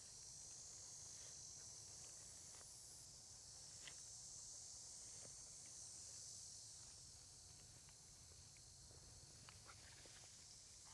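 Near silence: faint open-field ambience with a steady high hiss and a few soft ticks.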